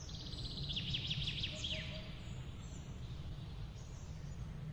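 Small birds chirping, with a quick run of high chirps about a second in, over a steady low rumble of outdoor background noise.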